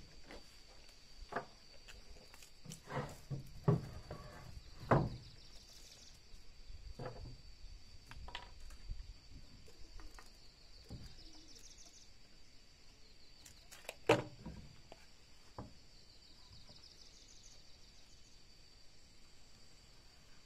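Wooden boards set down and knocked against a wooden plank floor: scattered dull knocks, several in the first five seconds and a sharper one about fourteen seconds in, over a steady high-pitched drone that swells every few seconds.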